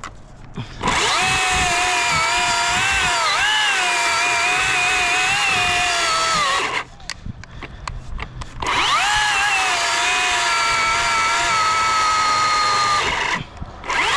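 Battery-powered chainsaw running in three long bursts, about a second in, about halfway, and near the end. Its high whine sags and recovers in pitch as the chain takes load in the wood.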